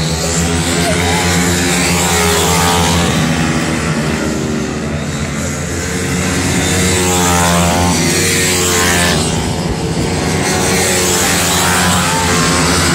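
Pit bike engines of the 160 Sport class racing, several bikes revving up and down as they pass, with a rising sweep in pitch about two-thirds of the way through.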